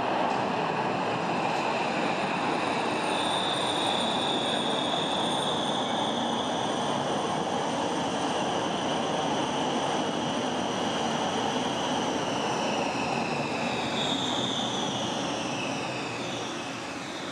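RegioTram light-rail vehicle rolling into the platform and braking to a stop, with steady running noise and high whining tones that fall in pitch as it slows near the end.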